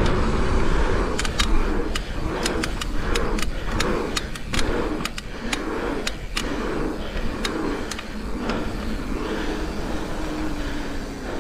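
Mountain bike riding on a dirt BMX track: a continuous rush of wind and tyre noise with a low rumble, broken by many sharp clicks and rattles from the bike over the bumps.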